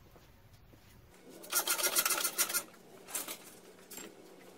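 Rough scraping and rubbing as a freed outboard motor hanging from a hoist is moved off the boat's transom. There is a longer burst about a second and a half in and a shorter one about three seconds in.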